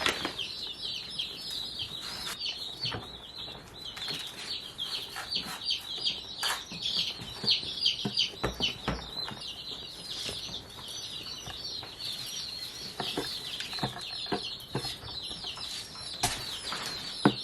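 Baby chicks peeping, many short high falling peeps overlapping without a break, with scattered light knocks and rustles.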